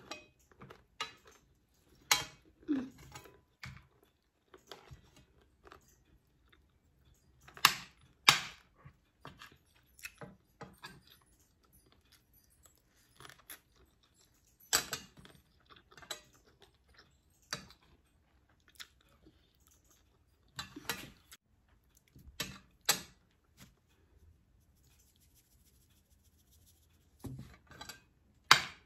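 Spoon and fork clinking and scraping on a ceramic plate at irregular intervals, with chewing of a mouthful of rice and egg in between.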